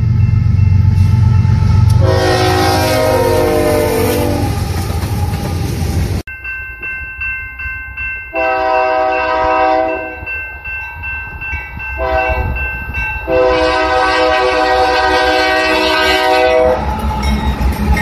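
Union Pacific diesel freight locomotives sounding their multi-chime air horns. First comes one blast with a slightly falling pitch over the low rumble of the approaching locomotives. Then, abruptly, a grade-crossing bell rings while the horn gives a long blast, a shorter one and another long one, and wheels clatter as the train rolls through the crossing near the end.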